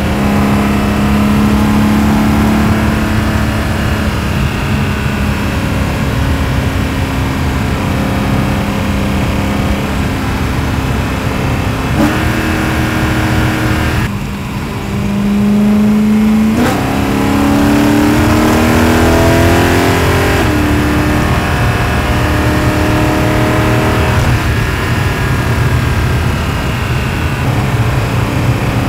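The straight-piped, catless S65 4.0-litre V8 of a BMW E92 M3, heard through exhaust and intake-plenum microphones, running at a steady cruise. Near the middle the note changes and drops briefly as the throttle is lifted. The revs then climb for about three seconds before falling back to a steady cruise.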